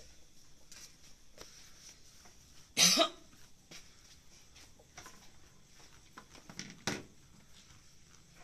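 A loud, short double cough about three seconds in, then a single shorter cough about seven seconds in.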